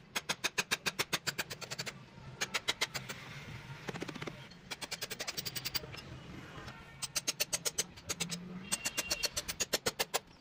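Quick runs of hammer taps, about seven a second, on the plastic case of an old lead-acid car battery, knocking along the lid seam to break the lid off, with short pauses between the runs.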